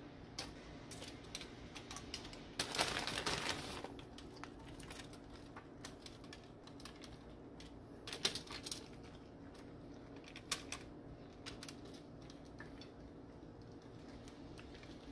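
A spoon tapping and scraping in a metal baking pan of tortilla-chip scoops, then shredded cheddar being handled from a plastic bag and sprinkled by hand. The sound is scattered light clicks and rustles, with a louder rustle about three seconds in and a steady low hum underneath.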